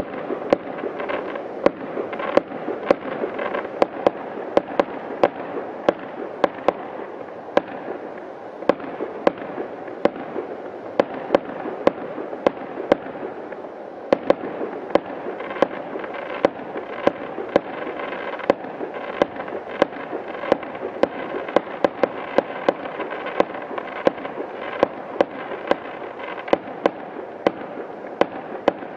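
Fireworks going off: sharp bangs, two or three a second, over a continuous din of more fireworks.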